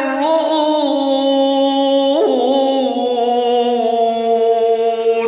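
Solo male voice singing an Arabic devotional supplication in long, held, ornamented notes. The pitch shifts about two seconds in and is then held again.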